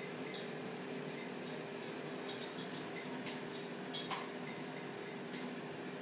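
Scattered small clicks and crunches of cockatoos chewing on a toy and eating pellets, the sharpest two about three and four seconds in, over a steady low room hum.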